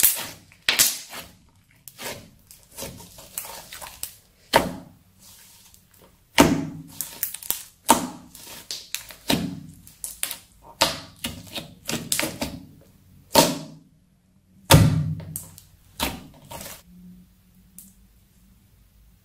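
Crunchy slime crackling and popping as hands squeeze and press into it: clusters of crisp clicks with softer squelching thuds. The crackling stops a couple of seconds before the end.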